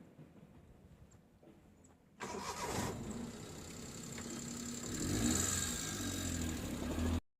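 An engine starts suddenly about two seconds in and runs with a steady low hum and some rising and falling pitch, then cuts off abruptly.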